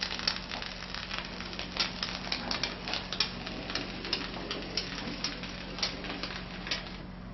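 Polyurethane foam gun dispensing a bead of expanding foam: an irregular crackling, spitting hiss that stops near the end. A steady low hum runs underneath.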